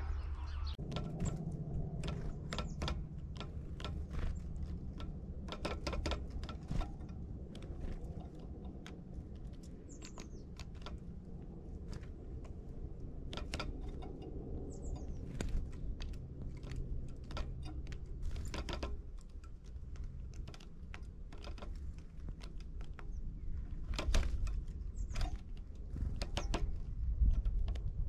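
Great spotted woodpecker pecking at food on a feeder: irregular sharp taps and knocks, with a few short high bird chirps.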